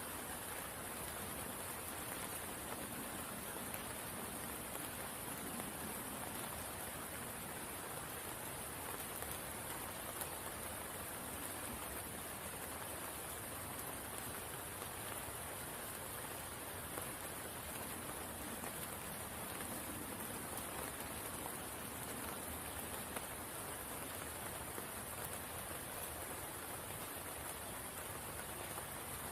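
Steady rain falling on the water of a spring pool, an even hiss with scattered small drop ticks.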